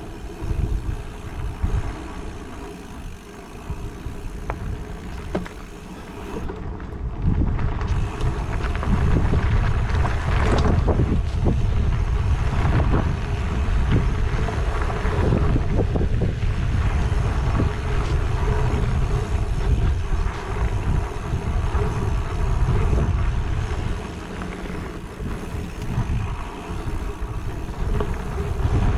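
Wind buffeting the microphone while riding a mountain bike, with the bike rattling and clattering over a rough dirt trail. The rush grows much louder about eight seconds in.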